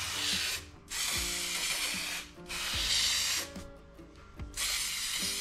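Aerosol can of high-strength spray adhesive hissing in four bursts of about a second each, with short pauses between, as it is sprayed onto wooden strips.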